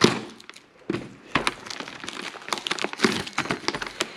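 Plastic shrink wrap on a cardboard collection box crinkling and crackling as hands press and pull at it, in many quick crackles with a sharper one at the start.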